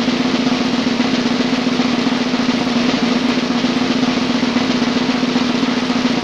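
Snare drum roll, steady and unbroken, played as a suspense roll before the last question.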